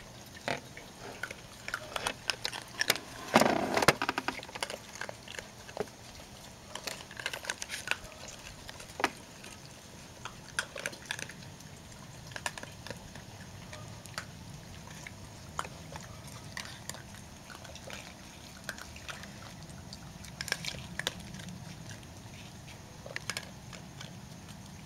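Several young raccoons eating dry kibble and crackers, with scattered small clicks and crunches of chewing throughout. A short, louder burst of noise comes about three seconds in.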